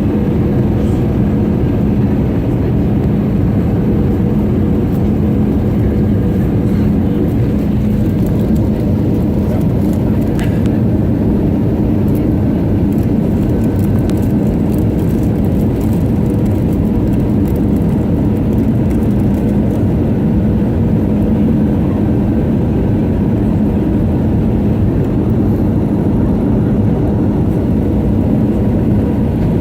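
Steady cabin noise inside an Airbus A320 in flight: the engines' drone and rushing airflow, with a steady low hum.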